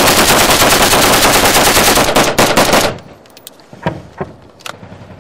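Loud automatic gunfire in fast, overlapping bursts that stop abruptly about three seconds in. A few separate single shots follow.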